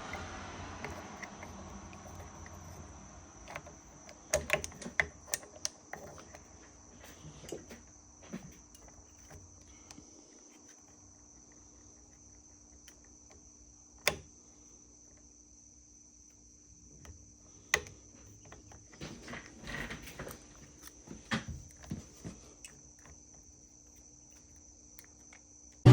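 Scattered light clicks and taps of metal engine parts and hand tools being handled as the piston is worked off a Yamaha YZ125 two-stroke engine, with a faint steady high-pitched tone underneath.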